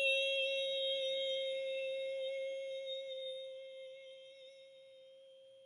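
One long, steady hummed note from a single voice, slowly fading.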